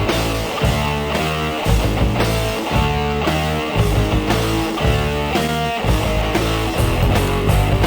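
Background rock music with distorted electric guitar and a steady driving beat.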